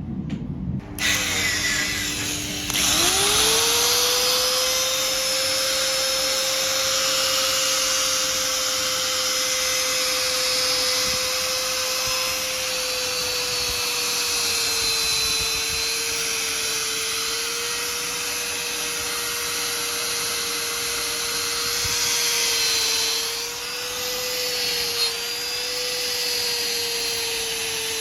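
Small electric power tool spinning up about three seconds in, then running steadily with a hiss, its pitch dipping slightly now and then.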